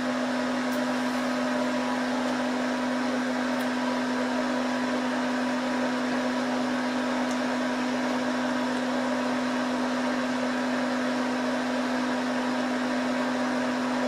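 Dell PowerEdge R710 server's cooling fans running at a constant speed during power-on self-test, a steady rushing noise with a strong, unchanging low hum.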